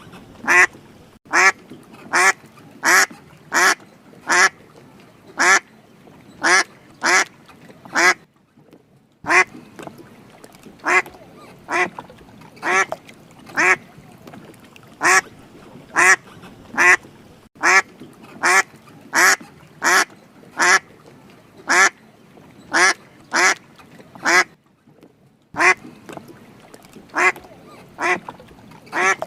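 Duck quacking over and over: short, harsh single quacks about once a second, broken by two brief pauses of about a second.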